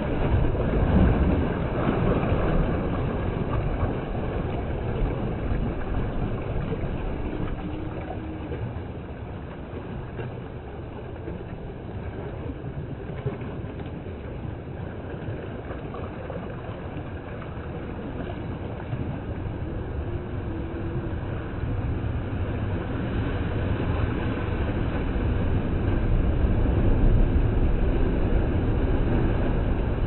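Sea surf washing in and breaking among rocks and concrete breakwater blocks, a steady rushing rumble that is loudest in the first few seconds, eases through the middle and builds again toward the end.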